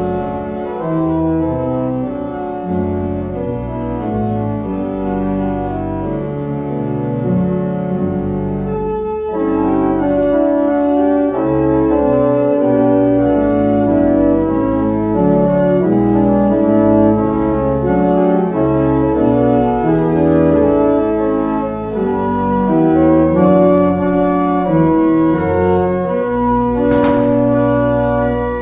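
Church pipe organ playing a postlude of slow, sustained chords over a moving bass line, with a short break about nine seconds in. A brief sharp click sounds near the end.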